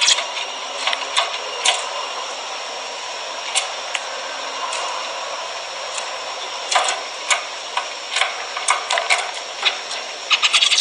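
Zebra finches giving short, sharp calls in irregular bursts, busy at the start and again toward the end, sparser in the middle.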